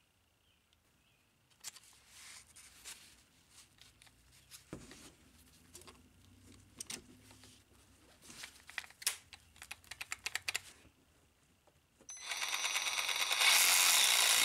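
Gloved hands rustling and clicking as a blade is handled and snapped into the clamp of a Milwaukee Hackzall reciprocating saw, with a sharp knock about five seconds in. Near the end the saw runs with no load, steady and loud, for about three seconds.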